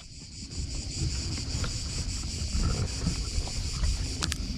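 Wind rumbling on the microphone over a steady high drone of insects, with small clicks and rustles from hands at the inflatable kayak's valve and hose, and one sharper click near the end.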